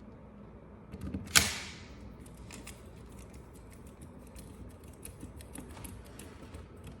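Small clicks and ticks of handling a pistol's parts and tools during reassembly, with one sharp, loud clack about a second and a half in, just after a few softer knocks.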